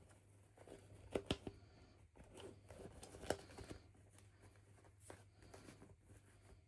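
Faint handling noises from small toys or packaging being unboxed: light rustling with a few sharp clicks, two close together about a second in and one more a little past the middle, over a steady low hum.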